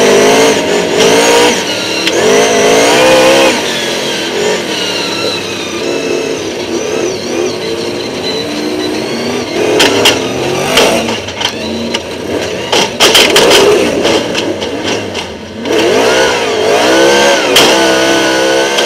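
V8 stock car engines revving up and down hard during a dirt-track race, heard on board. There is a run of sharp knocks and bangs about ten seconds in and again about thirteen seconds in.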